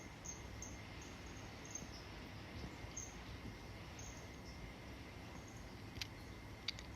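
Quiet room tone: a steady faint hiss with a thin high whine, and two short faint clicks about six seconds in and just before the end.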